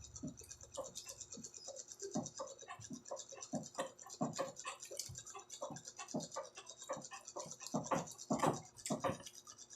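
Close-miked eating sounds: wet chewing, mouth clicks and smacks coming irregularly several times a second as fried dried fish (tuyo) escabeche is eaten. A faint steady high hiss runs behind them.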